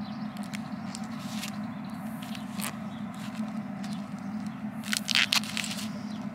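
Plastic film crackling and rustling in small clicks as hands stretch Parafilm grafting film around olive scions, with a louder cluster of crackles about five seconds in. A steady low hum runs underneath.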